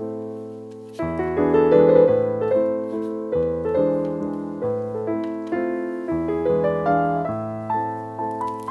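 Background piano music: a gentle run of notes and chords, each struck and fading away.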